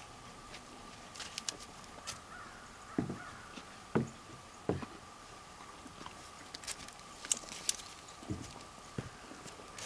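Boots stepping on a hollow plastic mounting block: three dull thumps in a row around the middle and two more near the end. Light clicks are scattered through, over a faint steady high tone.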